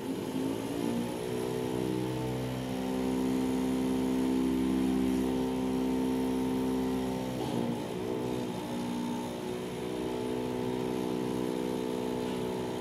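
Small rotary engine on a test stand, spun up with a hand-held electric starter and running on biodiesel. A steady pitched hum rises in pitch as it starts, dips briefly and recovers about halfway through, and dies away at the end.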